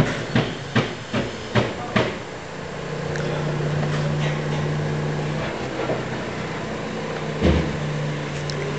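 Hammer blows on timber, about six in quick succession at roughly two and a half a second, then one more knock near the end, over the steady hum of a mobile crane's engine running.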